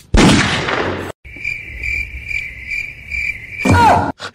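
Cricket chirping: a steady high trill that pulses about three times a second, after a loud rushing noise in the first second. A short loud sound with a falling pitch cuts in near the end.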